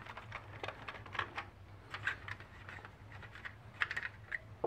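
Screws being taken out of the power-supply bracket of a Sony PVM-14M2U CRT monitor by hand: faint, irregular small clicks and ticks of screwdriver and metal, with a quick cluster of clicks near the end.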